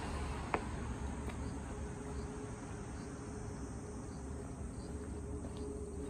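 Insects chirping softly over low outdoor noise, with a steady hum coming in after a second or so and a single click about half a second in.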